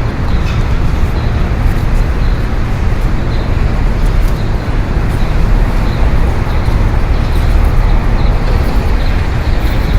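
City street traffic: a steady, dense noise of cars and engines going by, with no single vehicle standing out.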